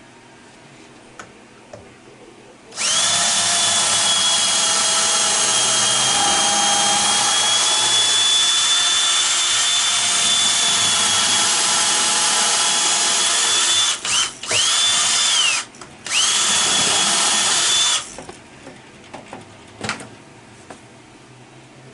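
An electric power tool runs steadily with a high whine for about eleven seconds, stops, then gives two short bursts before cutting off.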